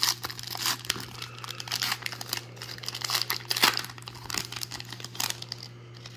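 Baseball card pack wrapper being torn open and crinkled by hand: a run of irregular crackles and rips, with a few sharper tears standing out.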